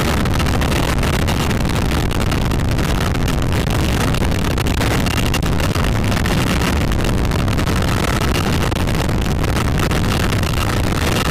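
CH-53E Super Stallion heavy-lift helicopter running at a hover with a slung load beneath it: a loud, steady roar of rotors and turbine engines with a faint whine.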